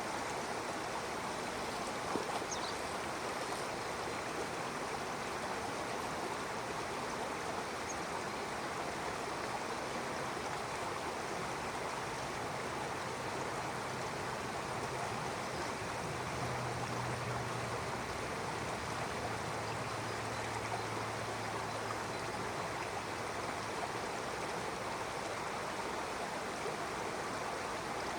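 A stream running steadily, water flowing and lapping in an even wash, with a few faint bird chirps near the start. A faint low hum rises in the middle and fades away again.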